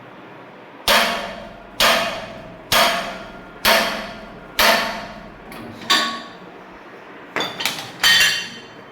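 Hammer blows on metal while fitting a bandsaw sawmill: about eight sharp strikes at roughly one a second, each ringing briefly, with a few quicker blows near the end.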